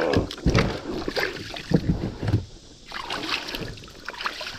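Knocks, bumps and rustling from gear being handled inside a kayak.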